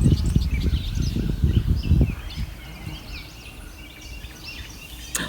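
Small birds chirping and twittering outdoors, with wind buffeting the microphone as a low, gusty rumble for the first two seconds. A single sharp click near the end.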